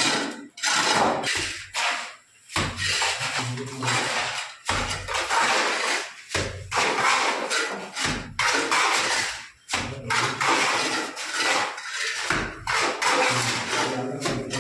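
Hand plastering with cement mortar: a steel trowel scraping mortar out of a metal pan and flinging it onto a brick wall, in irregular strokes about a second apart.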